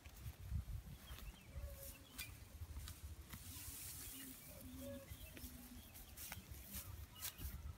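Dry rice straw rustling and crackling as it is pulled and disturbed by hand, with a brief louder rustle about four seconds in, over a low rumble of wind on the microphone.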